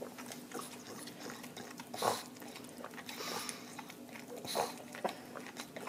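A pug sucking and chewing on the nipple of a milk bottle, making irregular smacking sounds, loudest about two seconds in and again a little past four seconds, over a steady low hum.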